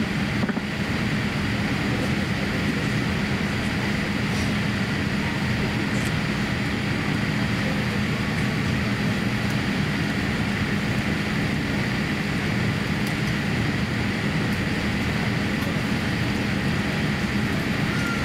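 Steady cabin noise inside a Boeing 787-8 during pushback: an even rush of air with a constant low hum and a faint higher whine.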